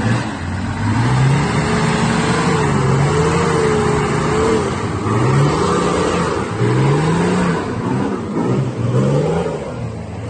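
Four-wheel-drive ute engine revving up and down repeatedly under load, as a bogged ute is towed out of deep mud on a recovery strap.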